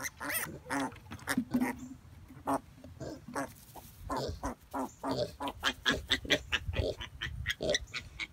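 Mini pigs grunting: a rapid series of short grunts, faster and closer together in the second half.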